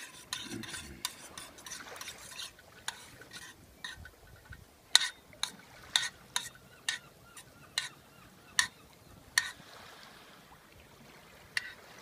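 A spoon stirring in a metal camping pot of soup: scraping in the first few seconds, then a run of sharp clinks against the pot, about two a second, and one more near the end.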